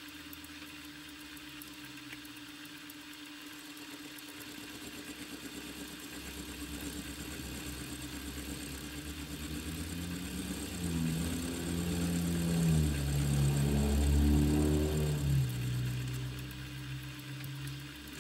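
Milling machine running a 4-flute end mill that side-cuts the edge of a quarter-inch steel plate, with a steady whine underneath. The cutting sound grows louder through the middle, shifting in pitch, and eases off near the end.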